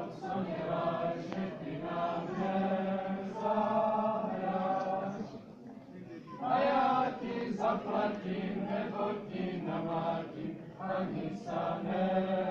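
A group of voices singing a Czech folk song together, breaking off briefly about halfway through and then starting again.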